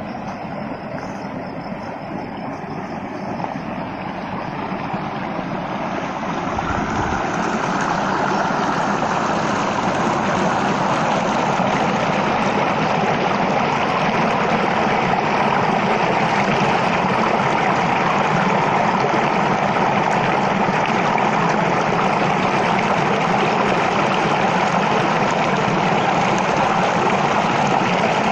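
Rushing water, a steady hiss that grows louder over the first several seconds and then holds steady.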